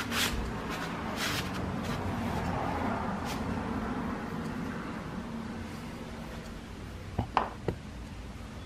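Handling noises at a workbench. A cloth rustles against the cast-iron steam-engine governor in two quick swipes, then three sharp knocks come near the end, the loudest part.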